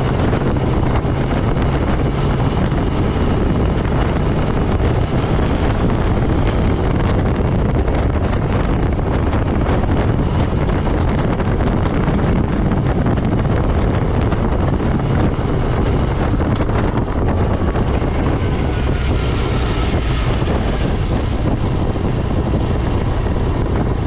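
Motorcycle engine running steadily while riding on the road, with wind rushing over the bike-mounted microphone.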